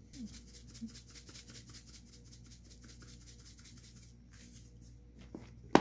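Cajun seasoning shaken from a shaker can into a bowl of flour: a quick run of soft, rapid rattling shakes that stops about four seconds in. Near the end comes a single sharp knock.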